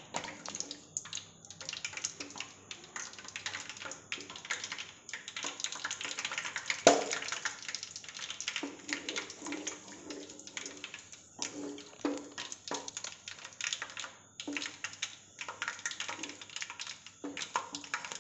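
Coconut oil heating in a large pan, crackling and sputtering with rapid, irregular pops as it comes up to frying heat, while a wooden spatula stirs it. A single sharp knock about seven seconds in.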